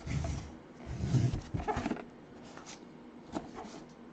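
Rustling and scraping of packaging being handled, a few short bursts in the first two seconds, then a couple of light clicks: a sealed box being worked open.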